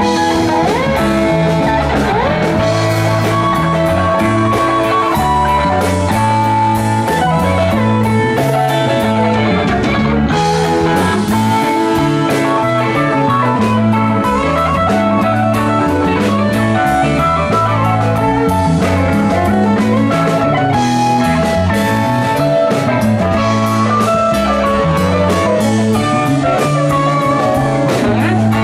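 Live rock band playing an instrumental jam with no singing: electric guitar lines over electric bass, keyboards and drum kit.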